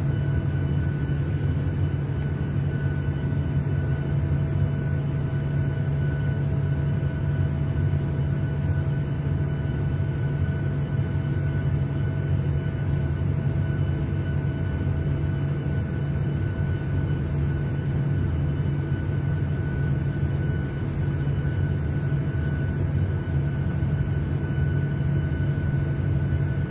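Airliner cabin noise in flight: a steady low drone of engine and airflow with a few faint steady hums, unchanging throughout.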